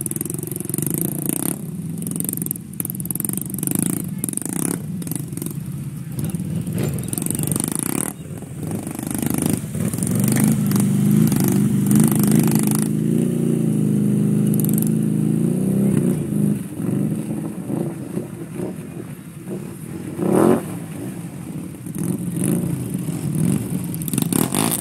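ATV engines running as the quads wade through deep muddy water, loudest from about ten to sixteen seconds in as one passes close, its revs rising and falling.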